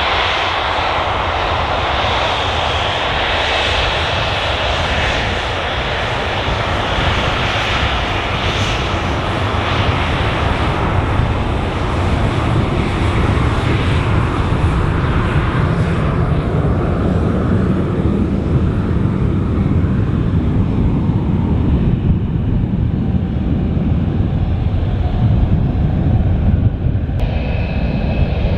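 Boeing 737's twin jet engines running at taxi power as the airliner taxis past: a steady rushing whine whose higher hiss fades after about ten seconds, leaving a deeper rumble.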